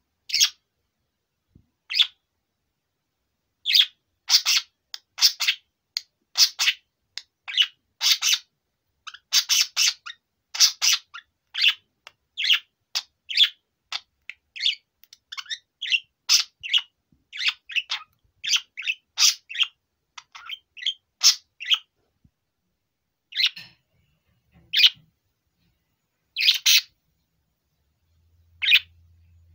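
Male budgerigar chirping: a long run of short, sharp, high chirps and squawks, coming several a second in the middle and more spaced out near the end.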